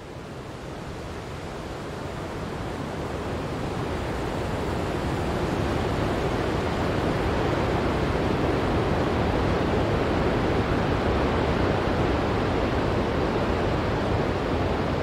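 Steady rushing noise that fades in over the first several seconds and then holds level.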